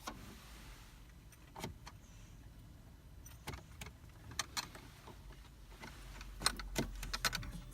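Scattered clicks and key rattles as a Land Rover Freelander 2's key fob is worked in its dashboard dock, where it is stuck. A low hum builds from about six seconds in.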